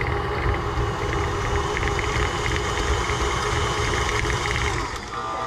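Electric mixer running steadily at speed, beating cookie dough in a bowl with a constant motor hum and rattle. It eases off slightly near the end.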